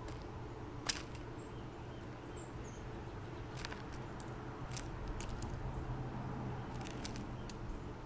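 House sparrow pecking seeds in a concrete bowl: scattered sharp clicks, the loudest about a second in and more through the second half. A few faint high bird chirps come in the first three seconds, over a steady low background hum.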